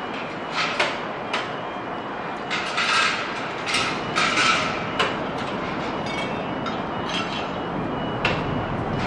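Steady mechanical noise broken by short, bright hissing bursts, several in the middle and another near the end.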